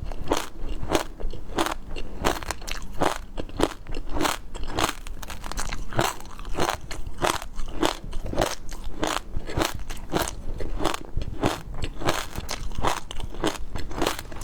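A person chewing crunchy food close to the microphone, a steady run of crackling crunches about three a second.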